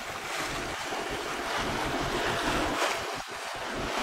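Wind noise on the microphone over sea water rushing and splashing past the bow of a sailboat under way, a steady noise without breaks.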